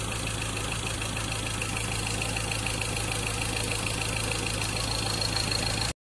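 Ford Ranger's 2.2-litre four-cylinder diesel idling steadily, heard from the open engine bay. The sound cuts out briefly near the end.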